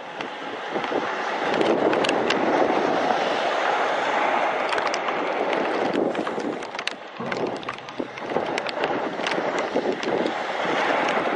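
Typhoon wind buffeting the microphone in strong gusts, peppered with sharp clicks of rain striking it. The gusts build about a second and a half in and ease briefly around seven seconds.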